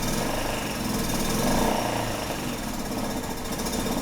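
GY6 150cc scooter's single-cylinder four-stroke engine running at idle, the revs swelling briefly about a second and a half in. It keeps trying to die, which the mechanic puts down to a fuel mixture problem.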